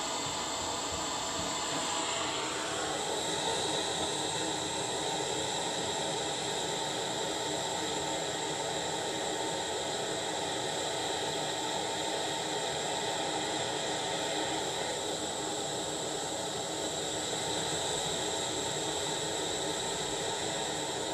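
Handheld propane torch burning with a steady rushing hiss, its flame played into a tin can to melt bismuth in a spoon. The sound changes character about two and a half seconds in, then holds steady.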